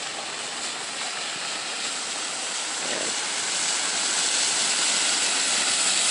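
Steady hiss of vehicle tyres on a rain-soaked road, growing gradually louder as a vehicle approaches.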